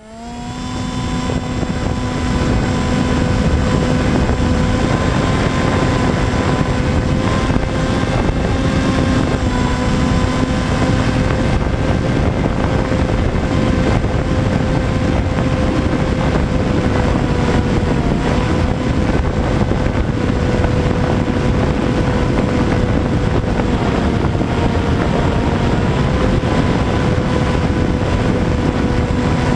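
Sky Surfer RC plane's electric motor and propeller running at a steady pitch with heavy wind rush. It swells up over the first few seconds, and the pitch holds nearly level through the flight.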